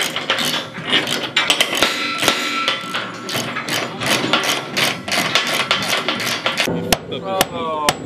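Hand-tool clatter of steel-bridge assembly: a socket ratchet clicks as nuts are run down on bolts through a steel I-beam, mixed with repeated hammer blows. Near the end a claw hammer strikes the wooden decking a few times, sharply, with voices.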